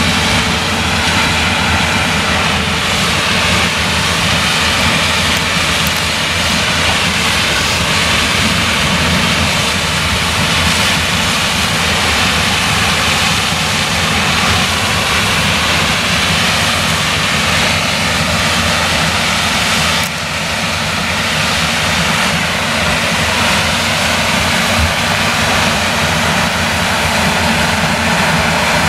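New Holland CX combine harvester working in maize with an eight-row Geringhoff corn header: the engine and threshing machinery run steadily under load as the header takes in the stalks, with a brief dip in level about twenty seconds in.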